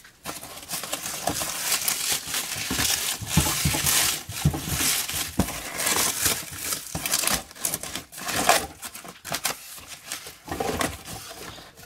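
Black plastic bag wrapping, bound with duct tape, crinkling and tearing as it is pulled open by hand, an irregular rustling throughout.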